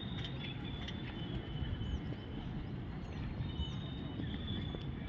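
Low, steady rumble of an express train hauled by a WAP-4E electric locomotive, slowly approaching. Birds chirp briefly over it now and then, and a thin high tone comes and goes.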